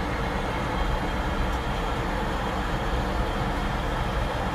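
Steady in-flight cabin noise of an Airbus A340-600: a constant rush of air with a low drone underneath.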